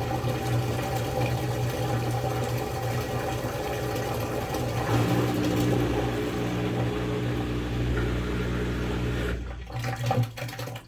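Whirlpool WTW5057LW top-load washer making a loud, steady humming noise with water rushing, shortly after a load was started. It breaks up near the end and then stops.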